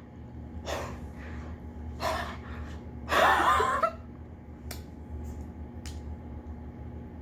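Close-miked eating sounds from someone eating a burrito: short mouth and breath noises, a louder one about three seconds in, and a couple of small clicks later, over a steady low hum.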